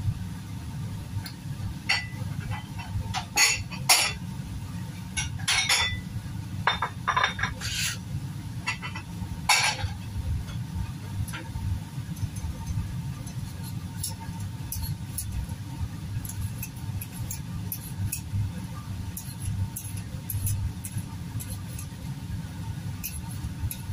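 Knife, bowl and dishes clinking and knocking at a kitchen sink while papaya is cut and scraped, busiest in the first half and lighter ticks after, over a steady low hum.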